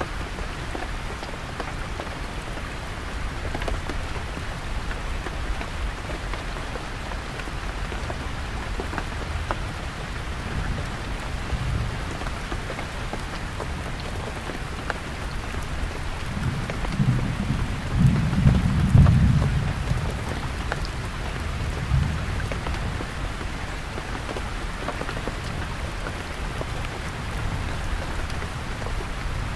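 Heavy rain falling steadily on a canvas tent, with a low rumble of distant thunder rising and fading a little past halfway and a briefer one a few seconds later.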